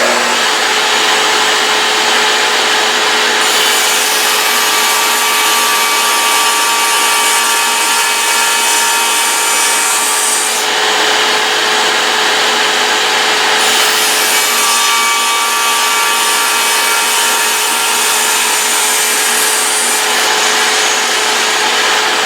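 A table saw and a shop vac run together while the saw makes two cuts through wood, each cut adding a louder, hissier cutting sound, the first about three and a half seconds in and the second about fourteen seconds in, each lasting about six seconds.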